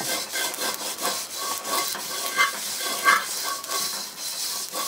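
Coarse salt and a paper napkin, held in metal tongs, scraped around the inside of a carbon steel wok in irregular gritty strokes. The salt works as a scrubber, lifting burnt-on fried rice off the wok's surface.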